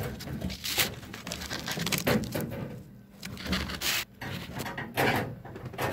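Irregular rubbing and scraping, a handful of short scuffs: a handheld camera brushing against rusty sheet metal and wiring inside the opening above a truck's windshield.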